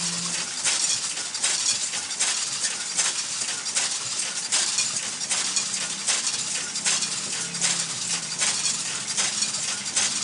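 Homemade mulch-perforating machine running: black plastic mulch film crackles and rustles as it is drawn over the rollers and punched, with dense irregular clicking and a faint low hum.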